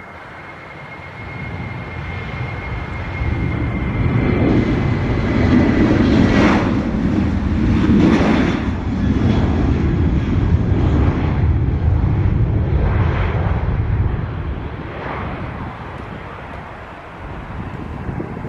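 Airliner passing close by: its engine noise swells up, stays loud for several seconds, then fades away, with a faint high whine in the first few seconds.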